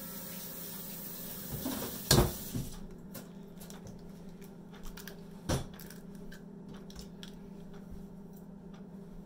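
A hard-shelled brown egg being cracked: a sharp knock about two seconds in and another midway, with small crackles of shell as it is pulled apart by hand.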